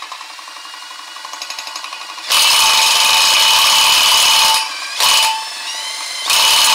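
Impact tool spinning a tractor's 12-volt, 20-amp generator clockwise. It runs steadily at first, then its hammer mechanism engages in two long loud bursts with a short one between: the generator is putting out voltage, and that load is enough to make the impact hammer.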